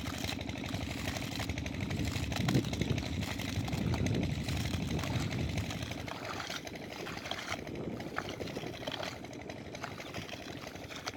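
A small engine running steadily, with water flowing and splashing; the splashing grows louder for a few seconds from about two seconds in.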